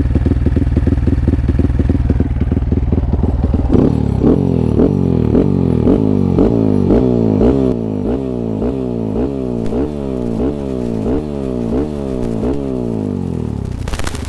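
Yamaha WR155R's single-cylinder engine running through an aftermarket QALA Performance slip-on exhaust with a carbon end cap, a full, bassy note: idling steadily, then pulling away about four seconds in and riding on with the revs rising and falling.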